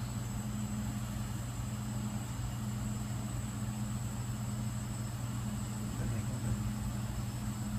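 Steady low machine hum with a faint, even high-pitched whine above it, unchanging throughout.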